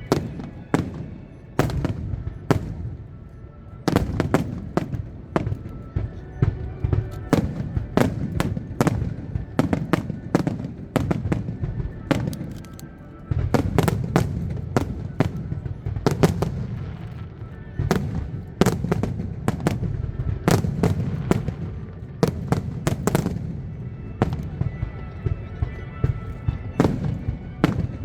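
Fireworks display: a rapid, continuous run of aerial shell bursts, with many sharp bangs a second over a low rumble.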